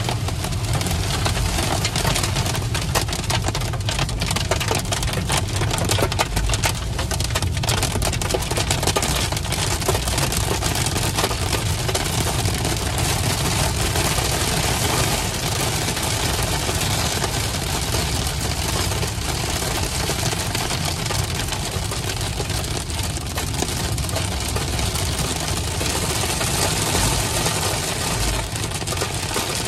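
Heavy rain pelting the windscreen and roof of a car at highway speed, heard from inside the cabin over steady road and engine rumble.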